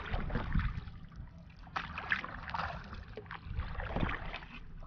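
Water splashing and lapping around a kayak as it is paddled, with irregular splashes over a low rumble.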